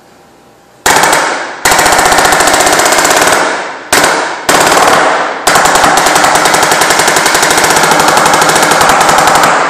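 Pneumatic air hammer rattling rapidly as it drives the caulked edge of a filter cloth into the groove of a filter press chamber plate. It starts about a second in and runs in several bursts with short pauses, the longest about four seconds near the end.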